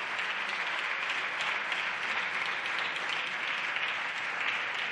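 Applause from a group of seated deputies, many hands clapping steadily.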